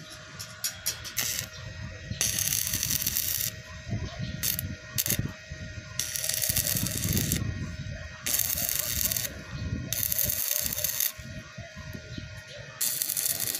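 Shielded metal arc (stick) welding on steel bar with an E6013 rod: a few short spits as the arc is struck, then about four bursts of steady crackling arc, each lasting one to two seconds and cutting off abruptly.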